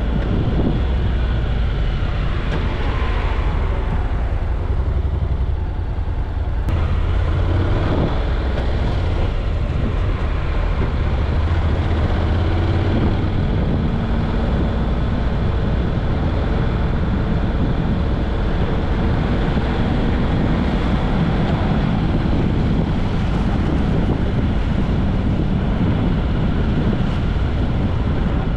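Car driving along city streets: a steady rumble of engine and tyre noise, heard from inside the car.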